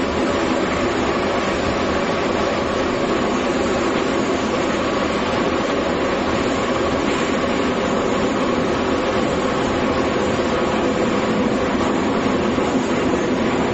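Moscow Metro train running, heard from inside the carriage: a steady, loud running noise with a constant hum.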